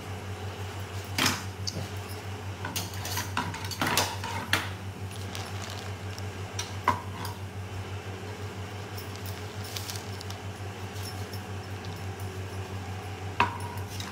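Kitchen knife clicking and knocking against a wooden cutting board and nearby dishes as a papaya is peeled and sliced: a few scattered sharp knocks, a cluster of them a few seconds in, and a ringing metal clink near the end. A steady low hum runs underneath.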